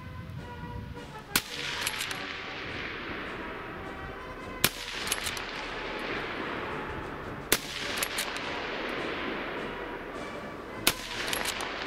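.303 Lee-Enfield No 4 Mk I* bolt-action rifle fired in rapid fire, four shots about three seconds apart, each echoing away over a second or two. Fainter clicks follow each shot as the bolt is worked.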